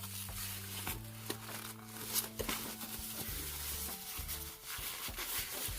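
Packaging being handled and unwrapped, with rustling and scattered light clicks, over soft background music with held low notes.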